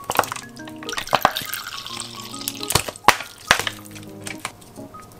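Soft background music over a pan of mushrooms sizzling as spoonfuls of mirin and soy sauce are poured in. Several sharp clinks and taps come in the first three and a half seconds.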